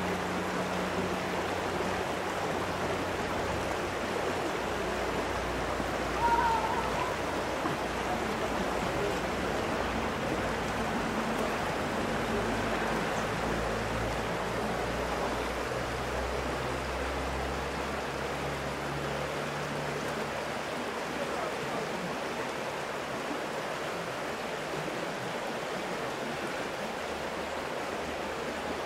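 Steady rushing of a stream, an even hiss of flowing water, with a brief high chirp about six seconds in.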